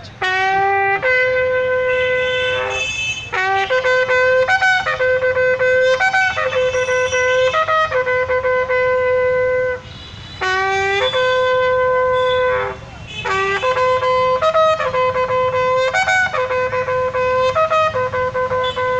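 A bugle playing a slow call of long held notes, with a longer break about ten seconds in. It is the funeral salute sounded at a state guard of honour.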